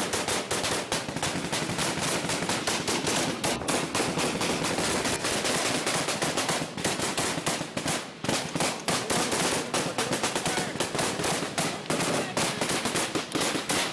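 Sustained real small-arms firefight: rifles and machine guns firing in rapid, overlapping bursts, with brief pauses about seven and eight seconds in.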